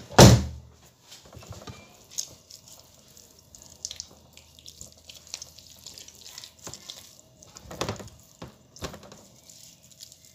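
Hands working seasoning into raw chicken in a metal tray: scattered wet squelches and small clicks. A loud knock comes just after the start, and a louder bout of handling about eight seconds in.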